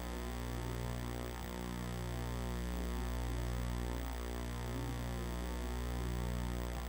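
Steady low electrical hum with a buzz of many overtones, unchanging throughout.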